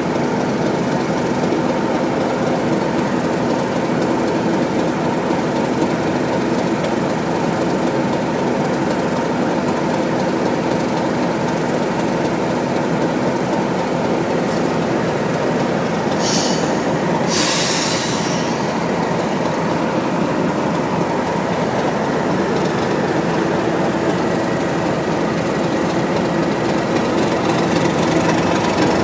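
Direct Rail Services diesel locomotives running with a steady engine drone close by. There are two short hisses a little over halfway through.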